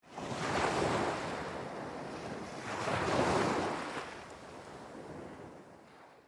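Sea waves washing in: two swells of surf, the second a little over two seconds after the first, then fading away until the sound cuts off suddenly.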